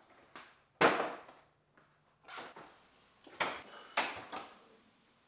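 A string of knocks and clacks as folding portable work stands are opened out and set down on the floor. The loudest knock comes just under a second in, and two more come later.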